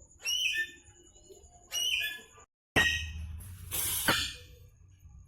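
Ringneck parrot giving short shrill calls: two brief squawks, then a longer, louder and harsher call about halfway through.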